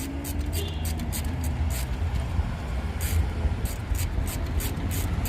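Light, irregular clicks and scrapes of a hand wrench and metal bolt while a brake caliper bolt is unscrewed, over a steady low rumble.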